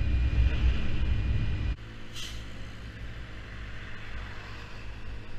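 Yamaha Zuma 50cc scooter riding at road speed, a loud low rumble of engine and wind. Less than halfway through it drops suddenly to a quieter, steady engine hum at low speed, with a brief hiss shortly after.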